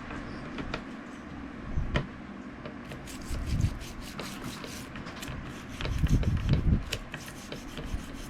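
Rubbing and scraping with many quick small scratchy clicks, from hands working on a small steel folding knife at a bench, with a few dull handling knocks.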